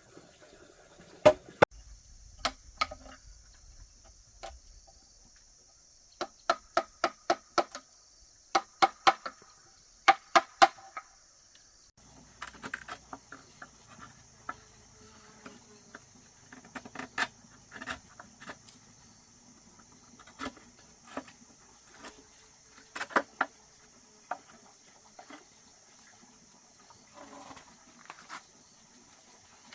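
Sharp, ringing blows of a hand tool striking wood or bamboo, coming in quick runs of several strikes and then more scattered. A steady high-pitched insect drone continues behind them.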